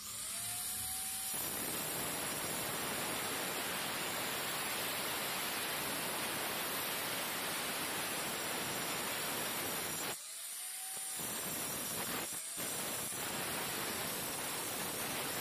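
Handheld electric angle grinder with a cutting disc, spinning up with a rising whine and then grinding steadily into a brick wall with a harsh rasping noise. About ten seconds in the disc comes briefly out of the cut and the motor whine rises as it runs free, and it does so again for a moment near the end.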